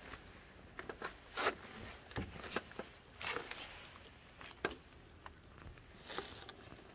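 Dry fallen leaves crackling and scraping on concrete steps under a large snake crawling over them, in irregular short rustles, the loudest about one and a half seconds in.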